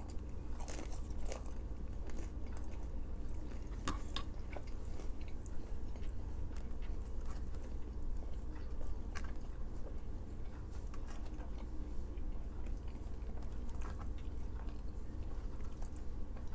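A person chewing and biting food close to the microphone, with scattered short crisp crunches, over a steady low hum.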